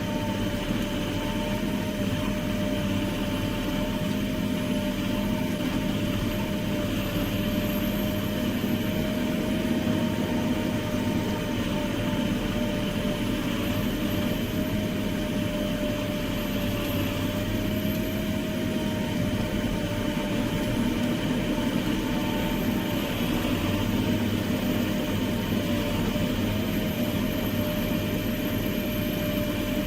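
A heavy machine's engine running steadily under constant load, with a steady whine above the engine note and no sudden knocks or changes.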